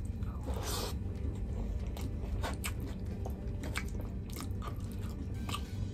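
Close-up chewing and mouth noises of a person eating curry-soaked rice and chicken by hand, with scattered irregular wet clicks and smacks and a short rustling rush about half a second in, over a steady low hum.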